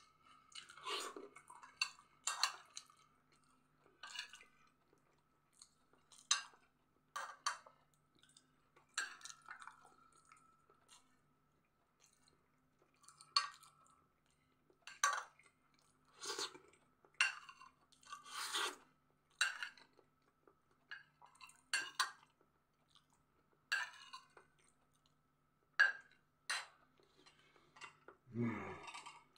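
Close-up chewing of soft food, broken by clinks and scrapes of a metal spoon on a china plate, in short irregular bursts about once or twice a second.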